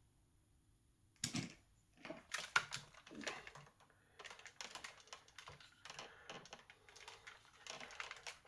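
Hard plastic toy parts of a Transformers figure clicking and knocking together as they are handled. It starts with one sharp click about a second in, followed by a run of small irregular clicks and rattles.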